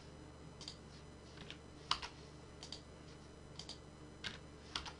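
Computer keyboard and mouse clicking as keys are tapped to add nodes, mostly in quick pairs about once a second, the loudest click about two seconds in.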